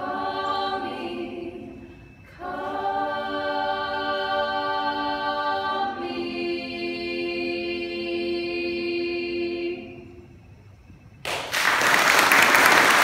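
Women's a cappella choir singing the final held chords of a song in three phrases, the last chord sustained long and fading out. Audience applause breaks out suddenly about eleven seconds in.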